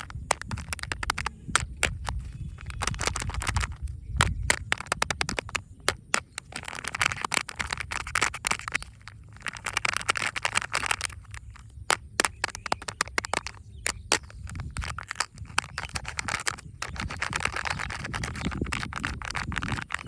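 Packaging being opened and handled by hand: crinkling plastic wrappers with many sharp clicks and taps. The crinkling comes in longer stretches about seven seconds in and again near the end.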